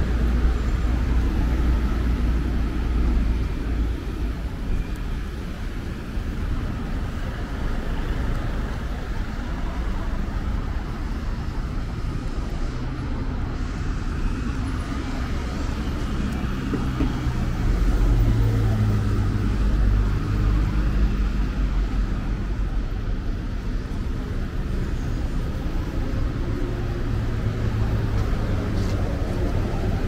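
Busy city street traffic: cars and buses passing close by, with a steady low engine rumble that is heaviest at the start and again about 18 seconds in.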